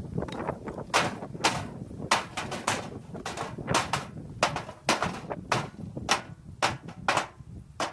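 Pieces of firewood knocking together as they are handled: a run of sharp wooden knocks, about two a second and uneven in spacing.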